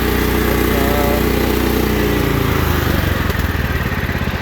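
Cub Cadet 1517's 18 hp Kohler Command single-cylinder engine running, then slowing down from about two and a half seconds in to a low idle, where its separate firing pulses can be heard.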